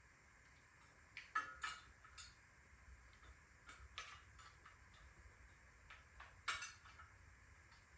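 Light metallic clicks and clinks of hand tools working on bicycle parts, a few sharper clinks between one and two seconds in and another about six and a half seconds in.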